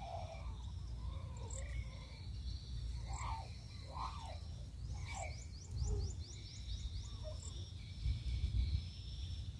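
Insects buzzing steadily at a high pitch, with scattered bird calls, including a quick run of about ten rising chirps around five seconds in, over a low wind rumble.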